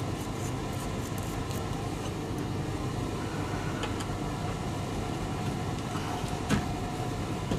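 Steady low machine-like rumble in a boiler room, with a few light clicks and knocks, about four seconds in and again six and a half seconds in, as a copper pipe is handled and pushed into a compression tee.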